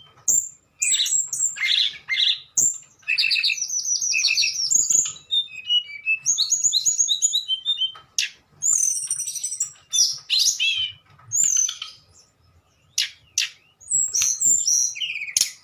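Tledekan, a small songbird of the flycatcher group, singing a fast, varied, flute-like song of whistles, trills and chirps in quick phrases, with a couple of short pauses about two-thirds of the way through.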